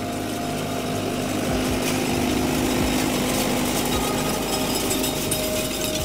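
FiatAgri 88-93 tractor's diesel engine running steadily under load while pulling a seed drill, with the drill's metal parts rattling and clicking.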